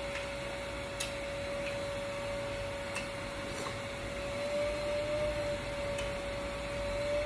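A steady one-pitch mechanical hum, drifting slightly higher about halfway through, with a few faint clicks spaced a second or more apart.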